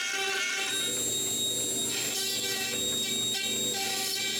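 CNC router carving wood: a steady high whine from the spindle, with lower motor tones that shift in pitch every half second or so as the machine moves along its path.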